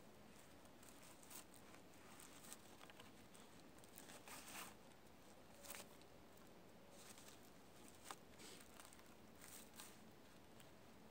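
Faint, scattered rustles and scrapes of cord being wrapped and pulled tight around crossed wooden poles, mixed with the rustle of clothing as the hands work.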